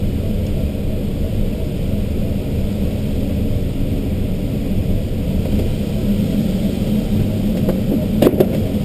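Steady rush of air around the cockpit of an ASK-21 two-seat glider in gliding flight, with no engine; a short click near the end.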